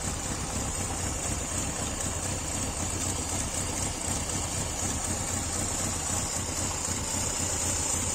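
1999 Fiat Palio 1.4's engine idling steadily on petrol, its fuel pump freshly replaced. The sound cuts off abruptly at the end.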